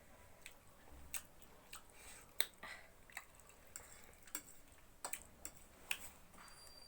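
Quiet eating sounds: scattered small clicks and smacks from chewing, with light taps of utensils, about a dozen irregular ticks over several seconds.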